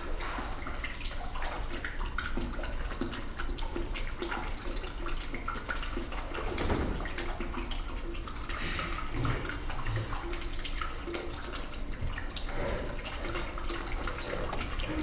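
Steady rustling and scuffling with many small knocks and clicks, the sound of a handheld phone camera being moved about while someone rushes around and strikes at a couch.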